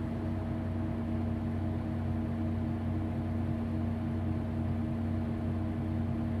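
Mercedes Citaro city bus engine idling steadily with an even hum.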